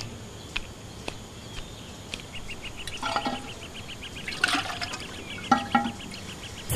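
Trickling, running water with scattered short chirps, and a fast, even ticking that starts about two seconds in.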